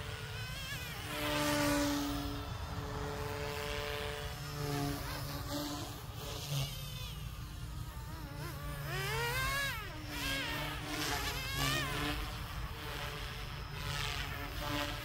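Small electric 200-size RC helicopter (Goosky S2 mechanics in a heavy resin-printed airframe) in flight: a buzzing motor and rotor whine that wavers and shifts in pitch, sweeping up and back down about nine seconds in.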